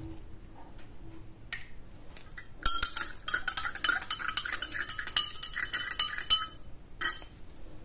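Long stainless steel spatula stirring liquid in a glass beaker, clinking rapidly against the glass with a ringing tone. The stirring starts a little under three seconds in and stops about a second before the end, with one more short burst of clinks just after.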